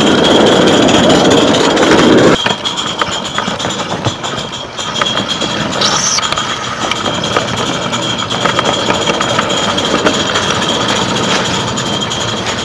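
Coal-fired Mamod 16 mm-scale live-steam locomotive running with its train, heard from a wagon close behind: steady running noise with many light clicks of wheels over the track. A loud rushing noise cuts off suddenly about two seconds in, leaving the lighter clicking.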